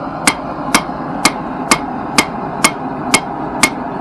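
Hand hammer striking red-hot flat steel on an anvil, forging a small cleaver blade. Eight evenly paced metallic blows, about two a second, each with a short bright ring, over a steady rushing noise.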